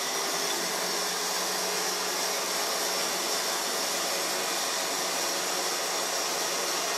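Warrior Samurai S9500 HS high-speed electric winch running steadily, its motor and gear train whirring as it reels in synthetic rope with no load on the line.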